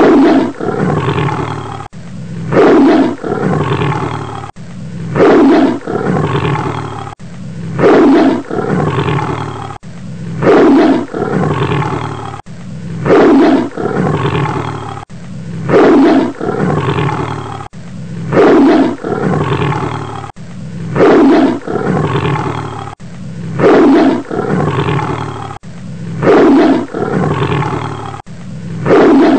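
A large animal's roar, repeated over and over at an even pace of about one every two and a half seconds. Each roar opens with a loud cry that falls in pitch and trails off into a lower, rumbling tail, and each sounds the same as the last.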